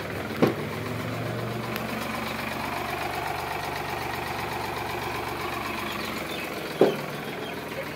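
Sonalika DI 745 tractor's diesel engine running steadily. Two sharp thumps stand out over it, one just after the start and one near the end.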